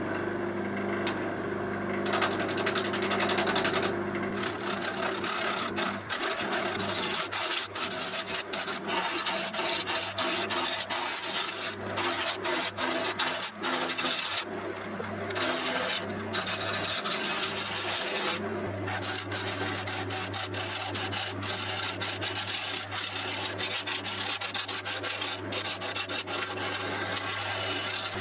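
Wood lathe motor humming steadily as it spins a square blank of African padauk. About two seconds in, a gouge starts cutting: a rough scraping with rapid chattering clicks as the blank is roughed round, broken by a few short pauses.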